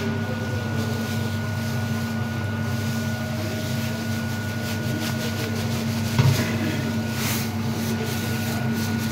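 Hydraulic oil press machine running with a steady mechanical hum, with one short knock about six seconds in.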